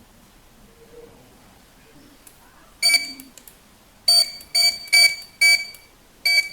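Issyzone IPBS001 wireless 1D barcode scanner beeping: one beep about three seconds in, then a quick run of five short, high beeps, each the scanner's good-read signal for a scanned barcode.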